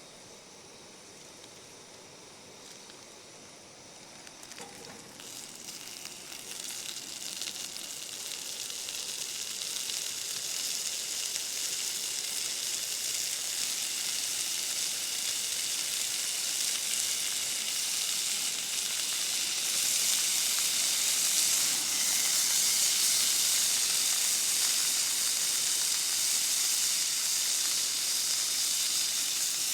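Small smoked sausages frying, a sizzle that starts about four seconds in and grows steadily louder as the pan heats.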